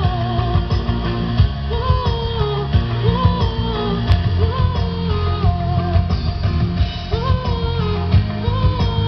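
A woman singing a song in short melodic phrases over a full instrumental accompaniment with bass and guitar.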